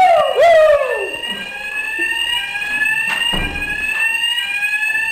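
Building fire alarm sounding continuously, a repeating rising sweep tone about once a second, signalling an evacuation. Near the start a voice calls out loudly twice over it, and there is a single knock about three seconds in.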